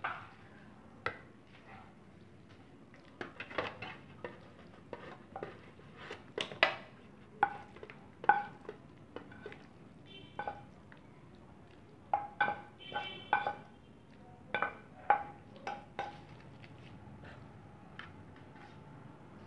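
A spatula scraping and knocking against a pan and an aluminium foil tray as creamy pasta is scooped and spread into the tray: a run of irregular clinks and taps, some with a short metallic ring.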